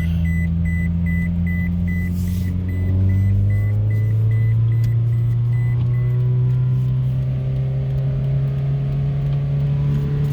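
2005 Scion tC's 2.4-litre four-cylinder engine running under way, heard from inside the cabin; its pitch rises about three seconds in as the car accelerates, then keeps climbing slowly. A short high beep repeats about four times a second and fades out partway through.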